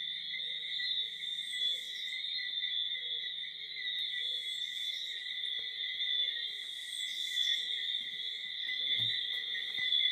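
Night chorus of tree frogs and insects: a continuous high, steady shrill, with a lower short call repeating about every 0.7 seconds.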